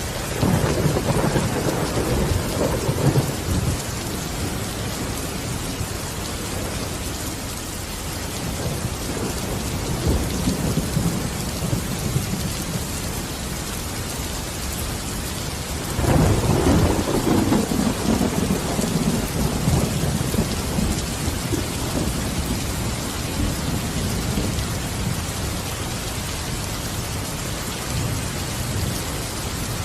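Steady rain with thunder rolling in twice: a low rumble breaks about half a second in and fades over a few seconds, a softer one swells about a third of the way through, and a second loud rumble breaks about halfway and slowly dies away.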